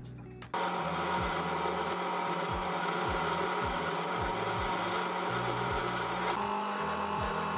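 Small metal lathe running while a grooving tool cuts into a spinning metal workpiece, a steady machine whine with cutting noise. It starts abruptly about half a second in, and its tone shifts a little about six seconds in.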